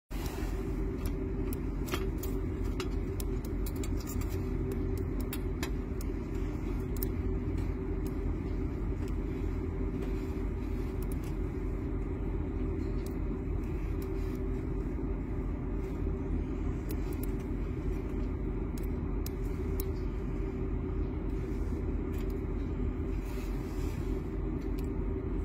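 A steady low mechanical drone, engine-like, runs unbroken throughout, with scattered light clicks on top, more of them in the first several seconds.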